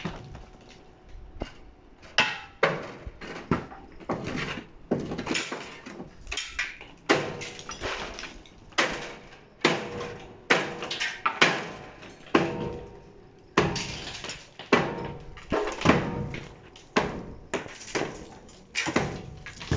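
Long steel chisel bar driven down by hand into a hard reinforced-concrete floor slab, breaking it up. The blows come sharp and irregular, about two a second.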